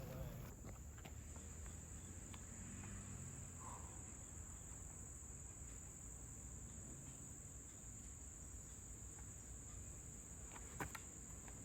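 Steady high-pitched chorus of insects shrilling in the background, with a single sharp knock near the end.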